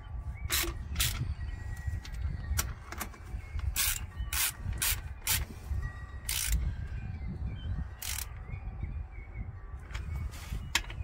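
Sharp clicks and rattles of hand work on a small solar microinverter and its wall bracket as the cables are plugged in, about a dozen at irregular intervals, over a steady low rumble.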